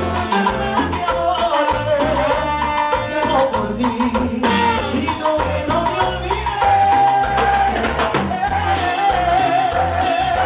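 A live salsa orchestra playing, with a lead vocal sung over a steady percussion beat.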